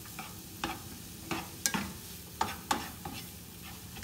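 A spatula stirring and scraping through diced green chile, onion and garlic in a nonstick frying pan, about six separate strokes, over a steady gentle sizzle of the vegetables softening in olive oil.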